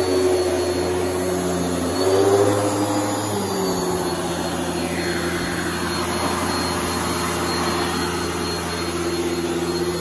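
Airway Sanitizor Mark V canister vacuum running steadily with its power nozzle on carpet. About two seconds in, the motor's pitch and loudness rise briefly, then settle back to a steady hum.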